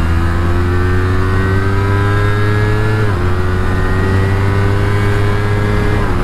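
Motorcycle engine accelerating under load, its revs climbing steadily, with a quick upshift about three seconds in and another near the end.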